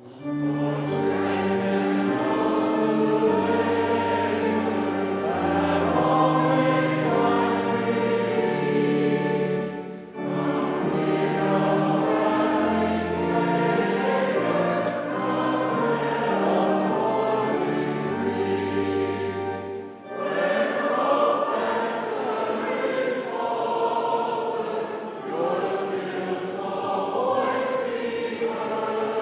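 Church choir singing in parts, accompanied by organ with sustained low notes. The phrases break briefly about a third and two-thirds of the way through, and after the second break the low organ notes drop out and the voices carry on.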